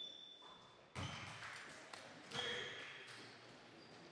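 A basketball bouncing a few times on a hardwood gym floor, each bounce echoing through the gym, with faint voices behind. A high steady tone fades out in the first second.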